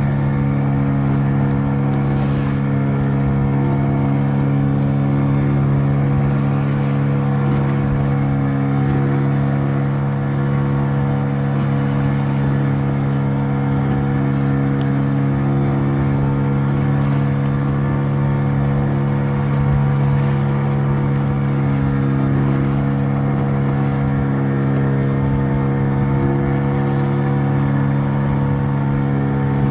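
Motor of a wooden river boat running at a steady cruising speed, a constant drone that holds one pitch throughout, with water rushing along the hull.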